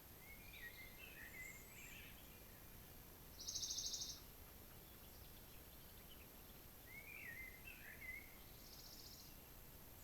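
Faint forest birdsong: a songbird sings two short warbling phrases, about a second in and again about seven seconds in. Between them a high, evenly pulsed buzzy trill, the loudest sound, rings out briefly about three and a half seconds in, with a fainter one near the end, over a low steady hiss.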